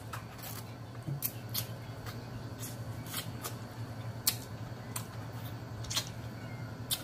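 Close-miked eating mouth sounds: irregular wet lip smacks and finger-licking clicks while chewing, over a faint steady low hum.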